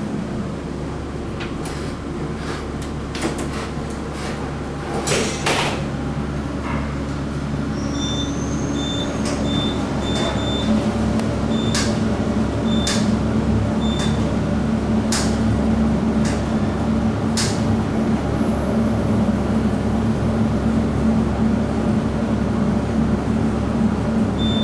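Elevator car travelling down: a steady rumble and hum of the moving cab that grows a little louder partway through. A series of short high beeps and a few clicks sound over it.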